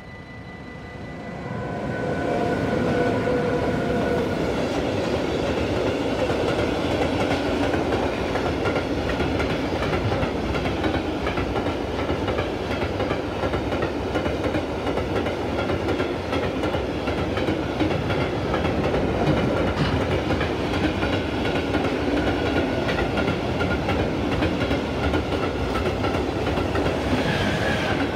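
Loaded DB Cargo coal train passing close by. Its pair of electric locomotives arrive over the first few seconds, growing louder, with a whine. Then comes a long, steady rumble and rattle of the hopper wagons' wheels on the rails.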